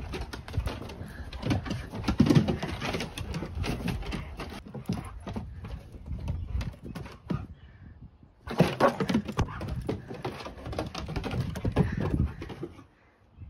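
Dogs' claws clicking and scrabbling on wooden deck boards as two dogs move about and play, a fast irregular run of clicks and knocks with low rumbling underneath; it falls quieter for about a second midway and again just before the end.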